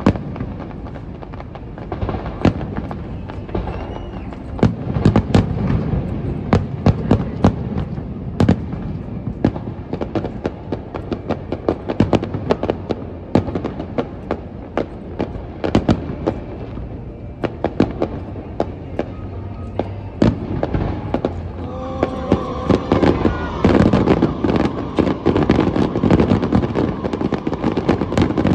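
Aerial fireworks going off in quick succession: many sharp bangs and crackles, one after another. In the last several seconds, steady musical tones join the bangs.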